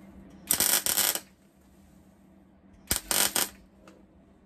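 MIG welder laying two short tack welds, each a burst of crackling arc lasting about half a second, the second near three seconds in, fixing a small steel patch disc over a hole in a van's tailgate panel.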